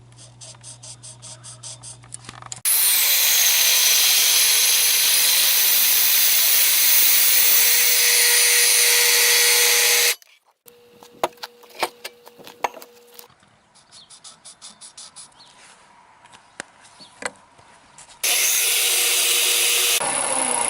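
A power tool working steel square tubing, likely cutting it, running loud in two long stretches, from a few seconds in to about halfway and again near the end, with a rhythmic ticking at the start and scattered clicks and knocks in between.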